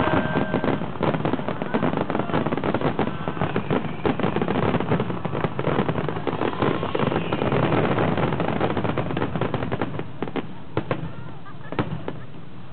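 Fireworks finale barrage: a dense, rapid run of cracking bangs from many shells and fountains at once. Near the end it thins to a few last separate booms.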